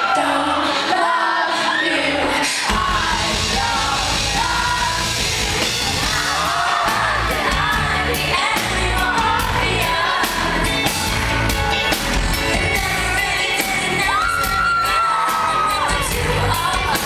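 Live pop band with a female lead singer, heard from the front of the crowd in a large hall. The singing is lighter at first, then the full band with bass and drums comes in about three seconds in and carries a steady beat under the vocal.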